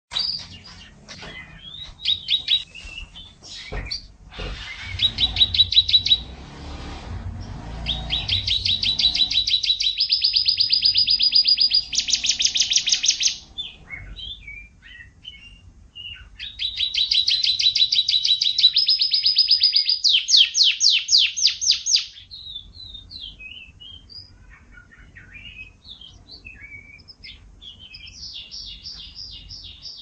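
Domestic canaries singing: long songs made of rapid trills, each trill held on one pitch before jumping to another, with two long loud runs in the middle and scattered chirps and warbles between. A few knocks and a low rumble sound in the first seconds.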